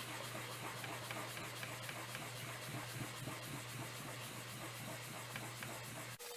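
Sandpaper wet-sanding the edge of a cast resin medallion by hand: continuous rasping, rubbing strokes that stop abruptly near the end.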